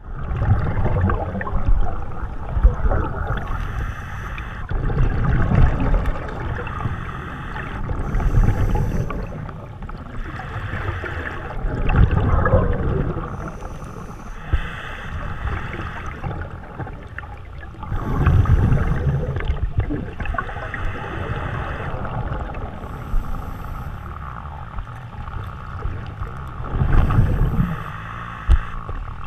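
Scuba breathing through a demand regulator heard underwater: exhaled bubbles rumble out in a swell every three to five seconds, with a faint hiss between them.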